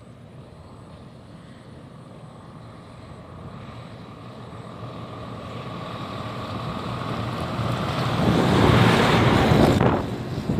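A motor drawing nearer, growing steadily louder over several seconds, with wind buffeting the microphone at the loudest point, then dropping off sharply near the end.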